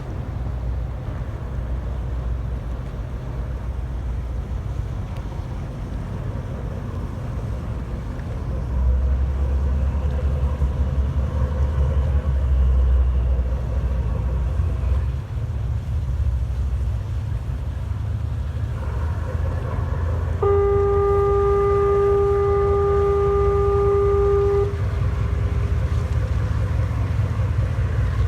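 Small high-speed passenger boat's engines running with a steady low rumble that swells about a third of the way in. About twenty seconds in, the boat's horn sounds one steady blast lasting about four seconds, the signal of its leaving port.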